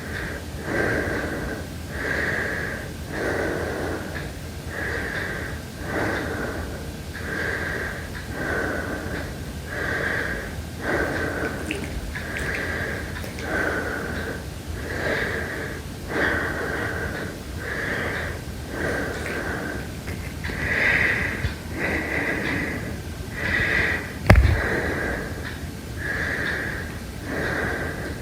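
Slow, heavy breathing, each breath with a whistling wheeze, in and out at a steady pace of roughly one breath every second or so. Near the end a single sharp click or knock stands out.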